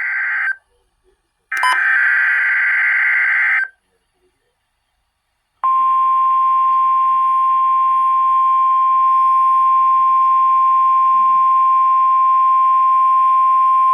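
NOAA Weather Radio Required Weekly Test tones. The end of one harsh, buzzing EAS/SAME data burst, then a second burst about two seconds long. After a two-second silence comes the steady single-pitched weather radio warning alarm tone, which sets off the specially built alert receivers.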